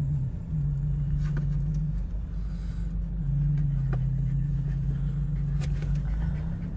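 Car engine running, heard from inside the cabin: a steady low drone with a few faint clicks.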